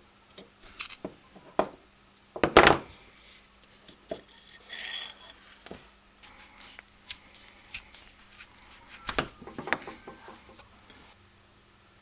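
Workshop hand-tool work on an old soldering iron: irregular metallic clicks, knocks and rubbing, with a louder knock about two and a half seconds in and a brief squeaking ring about five seconds in. The handling stops shortly before the end.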